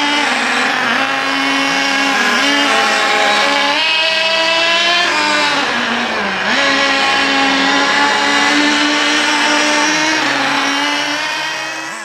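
The SH .18 nitro engine of an HSP Camper 1/8 buggy running at very low throttle while the buggy is driven slowly in circles. It is running very rich, as it should for the second break-in tank. The steady buzzing note wavers a little, dips in pitch briefly twice, and fades out near the end.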